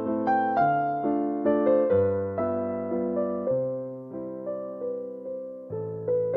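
Background piano music: a gentle keyboard melody of struck notes over a slow bass line.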